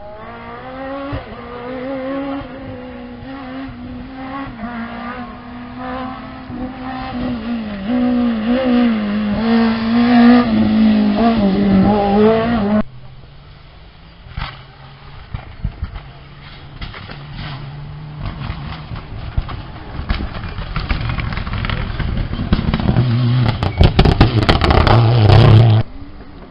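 Rally car engines at full throttle on a stage: a car approaches and grows louder, its pitch rising and dropping with the gear changes. The sound cuts off abruptly about halfway, and a second rally car is heard approaching, loudest near the end with a flurry of sharp cracks.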